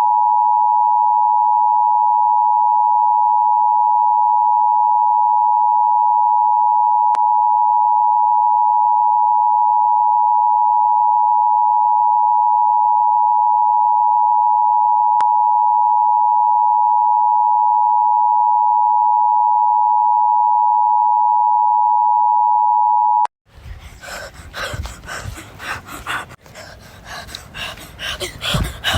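Emergency Alert System attention tone: one loud, steady electronic tone held for over twenty seconds, then cut off abruptly. A jumble of noise and clicks follows in the last few seconds.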